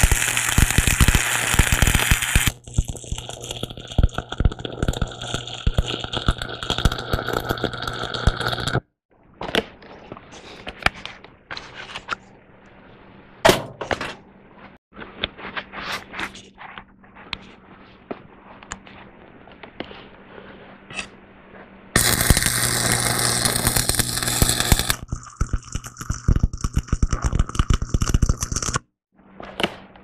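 Stick welding: the arc crackles and sizzles steadily for about nine seconds and stops, then, after a stretch of scattered light taps and clicks, is struck again for about seven seconds near the end.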